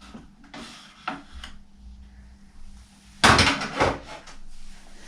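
Plastic detergent drawer of an LG washing machine being worked loose and pulled out. It gives a few light knocks, then a loud rattling clatter about three seconds in.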